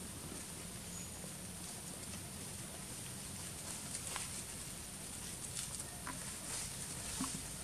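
Outdoor ambience: a steady high hiss with a few faint scattered clicks and rustles from macaques moving about and handling food in the grass.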